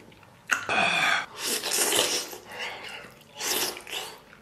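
A person noisily slurping and sucking in air at the mouth while eating stewed meat off the bone, three times.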